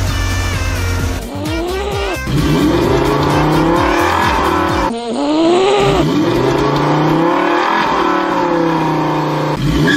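Cartoon sound effect of a motorcycle engine revving, its pitch rising and falling over and over, after about a second of music.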